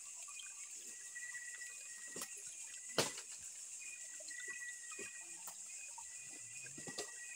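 Faint night ambience of insects, with scattered snaps and crackles of dry branches and brush underfoot. A sharper crack comes about three seconds in.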